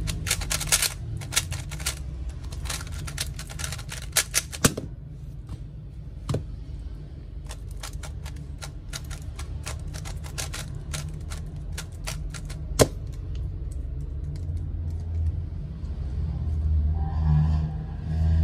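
QiYi MP magnetic 3x3 speedcube being turned fast by hand: a dense run of quick plastic clicks and clacks for about the first five seconds. After a short pause come more scattered turning clicks, with one sharp click a little past the middle.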